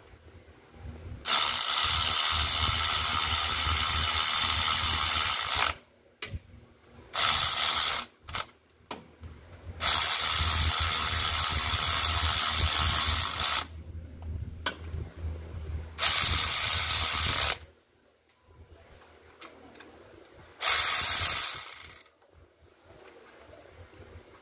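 Cordless battery-powered electric ratchet wrench running in about five bursts of one to four seconds, with short pauses between, as it drives in the water pump bolts.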